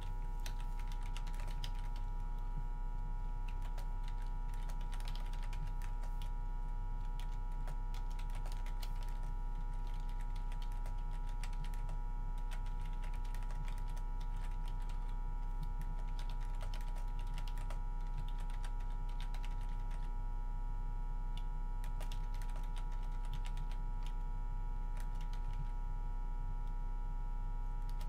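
Computer keyboard typing and clicking in irregular runs, over a steady low hum.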